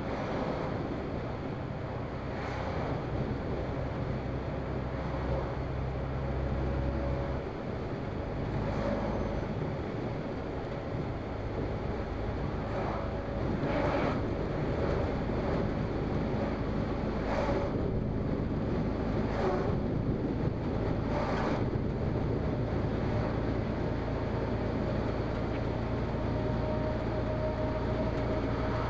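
Engine and road noise heard inside a moving truck's cab, a steady drone whose low note changes about seven seconds in. Oncoming vehicles go past with short whooshes, several times, the clearest near the start and around the middle.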